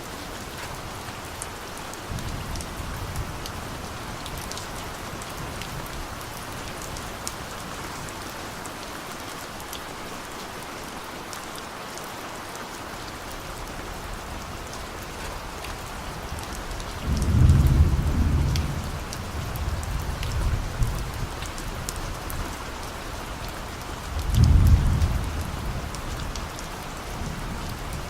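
Steady rain hissing, with distant thunder rumbling low: a soft rumble a couple of seconds in, then two louder rolls, one a little past the middle and one near the end.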